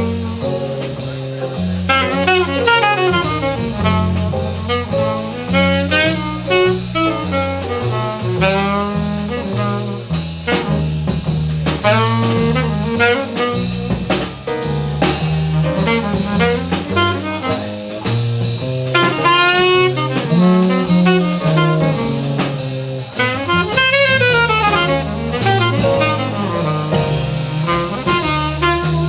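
Jazz music: a saxophone carries a bending, gliding melody over a walking bass that steps from note to note about twice a second, with a drum kit keeping time.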